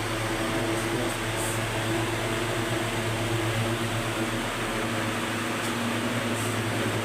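Steady low machine hum at one constant pitch.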